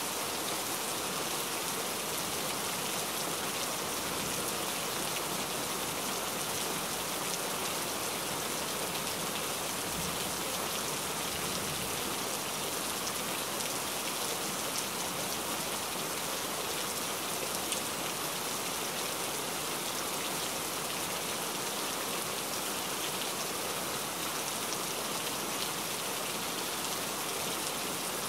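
Heavy rain falling steadily, a dense even hiss of countless drops striking surfaces.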